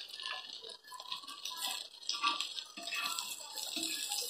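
Oil sizzling steadily around halved boiled eggs frying in a flat pan, with light scrapes and taps of a spatula moving them about.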